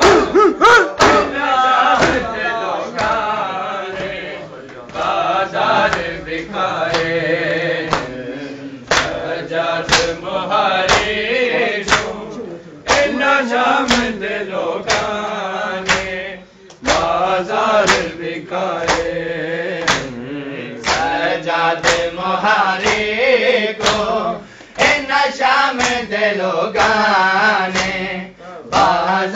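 Men chanting a noha, a Shia mourning lament, in unison into a microphone, with sharp hand-on-chest slaps of matam about once a second keeping the beat.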